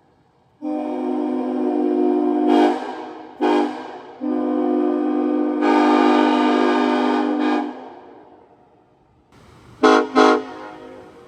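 Nathan Airchime K5LLA hybrid five-chime train horn blowing on air: a long chord blast, a short toot, a second long blast that turns brighter about halfway through, then two quick toots near the end. Each blast rings on and dies away slowly after it cuts off.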